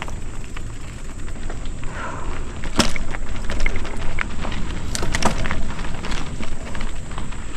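Mountain bike riding over a dirt trail: a steady low rumble of wind and tyre noise on the microphone, with a few sharp clatters from the bike jolting over bumps, the loudest about three seconds in and two more around five seconds in.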